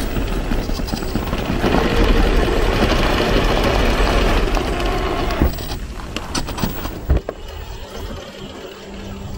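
Tyres of a Gmade Buffalo GS02F 1/10-scale RC crawler crunching and gripping over dirt, pine needles and leaves, loud and dense for the first five seconds or so. It then drops off sharply to quieter sound, with a few sharp clicks and snaps.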